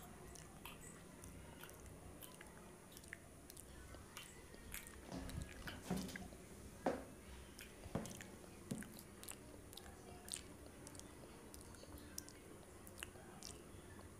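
Close-miked eating: a person biting and chewing a fried snack with chutney, with many small wet mouth clicks and smacks. A louder bite and smack comes about six to seven seconds in.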